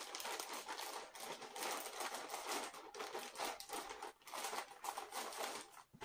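Thin clear plastic packaging bag crinkling and rustling as a kitchen towel is handled in it, with many small irregular crackles.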